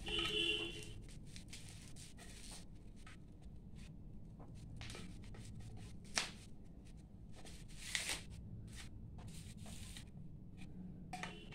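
Scissors snipping and the rustle of the white padding being cut and pulled from a bamboo bansuri flute, with many small clicks. Two sharper snaps stand out about six and eight seconds in, and a brief high squeak sounds right at the start.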